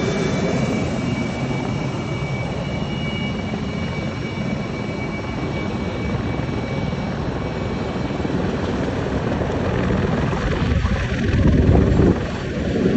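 F-22 Raptor's twin F119 turbofan engines running at taxi power: a steady jet roar with a thin high whine over it that fades out about halfway through. The sound swells into a louder, lower rumble near the end as the jet swings round toward the listener.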